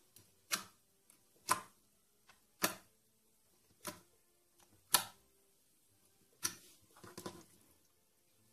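Translucent orange glue-and-borax slime pressed and poked with the fingertips, giving short sharp clicks and pops about once a second, with a quick cluster of them near the end.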